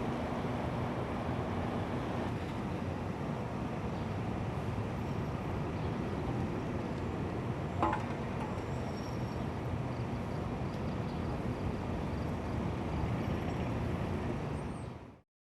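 Steady mechanical rumble with a faint low hum, and one short knock about eight seconds in; the sound fades out abruptly just before the end.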